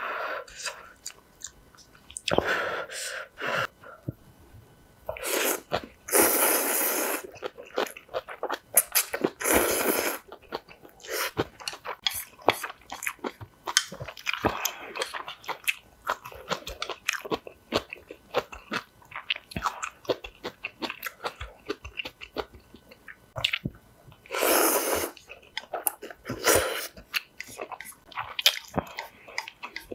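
Close-up eating sounds of instant ramen noodles: several long drawn-in slurps of about a second each, separated by stretches of wet chewing with small clicks and smacks.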